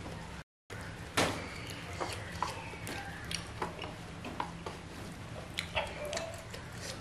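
Close-miked eating sounds of instant fried noodles: chewing and slurping with scattered small wet clicks, the sharpest about a second in. Chopsticks scrape and tap the steel tray.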